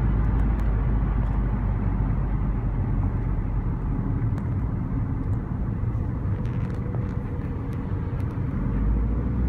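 Car engine and road noise heard from inside the cabin while driving on a highway: a steady low rumble that eases a little in the middle and comes back up near the end.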